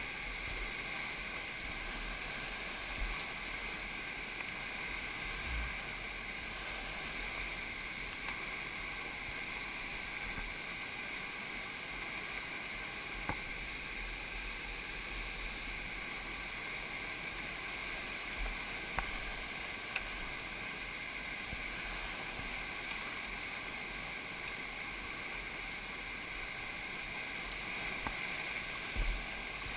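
Whitewater rapids rushing steadily over rocks, a constant hiss of churning water, with a few faint knocks along the way.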